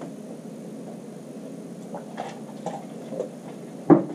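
A few light taps and knocks from things being handled on a worktable, then a sharper, louder knock near the end, over a steady low background noise.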